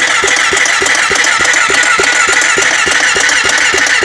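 Honda 400EX's electric starter cranking its single-cylinder four-stroke engine: a steady starter whine with even compression pulses about five times a second. The engine does not catch, the quad's no-start problem.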